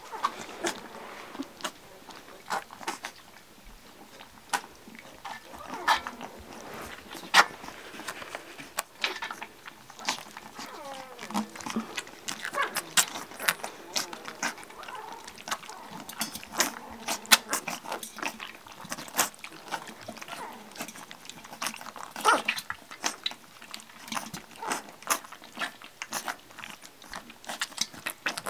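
Labrador puppies lapping and slurping milk from a stainless steel saucer dish in clumsy first tries at drinking from a dish, with many small irregular clicks and taps of mouths and paws against the metal.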